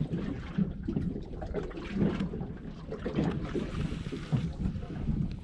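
Wind buffeting the microphone over water sounds around a small boat on the bay, an uneven, gusty rumble.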